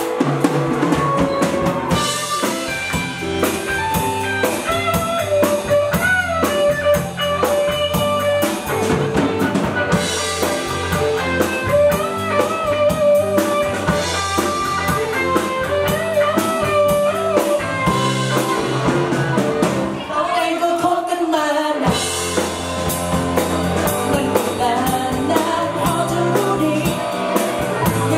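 Live pop band playing a song: drum kit, bass, electric guitar and keyboard, with a bending melodic lead line over a steady beat. The bass drops out for about two seconds around twenty seconds in.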